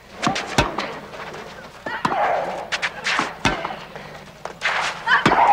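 Tennis rally on a clay court: racket strikes on the ball a second or two apart, with a player's short vocal grunts accompanying the shots.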